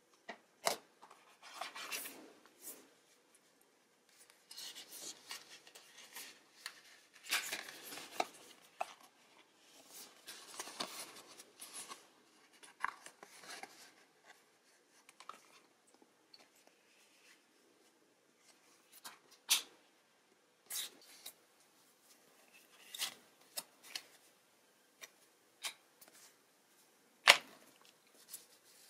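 Paper inserts from a phone box being handled: booklets, cards and a paper envelope rustling, sliding and flexing in short bursts, with sharp taps and clicks scattered through. The loudest is a single sharp click near the end.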